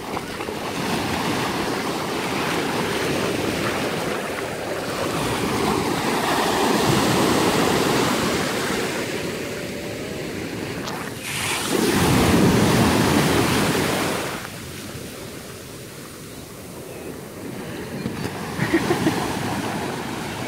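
Ocean surf breaking and washing through the shallows, swelling and fading in waves, with wind buffeting the microphone. The loudest surge comes a little past halfway.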